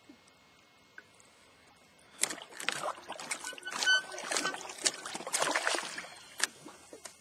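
A hooked gar thrashing and splashing at the water's surface beside a small boat as it is taken off the trotline hook and drops back into the water, with sharp knocks among the splashes. The splashing starts about two seconds in and dies away a second or so before the end.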